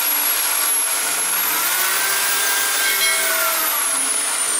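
Bosch corded electric drill boring into the grout joint between ceramic wall tiles, running continuously with a grinding noise. Its motor whine dips and rises in pitch a couple of times.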